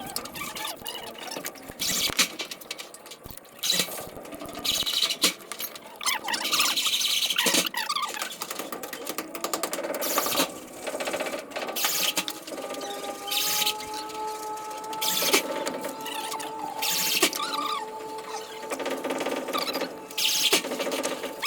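Fast-forwarded plumbing work sounds, pitched up into squeaky, chattering noises, with many short sharp bursts and some wavering held tones.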